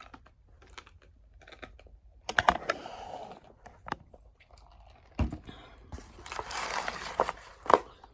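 Handling noise: scattered clicks and taps, with two stretches of paper rustling, the second and longer one near the end, as food packaging is handled.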